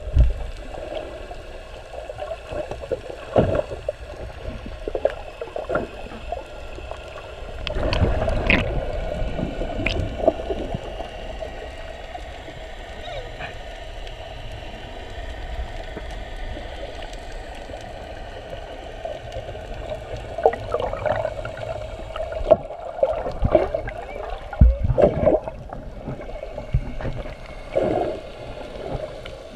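Underwater sound picked up through a GoPro's waterproof housing: a muffled, steady hum with gurgling water and several sudden low thumps and knocks as the camera is moved through the water.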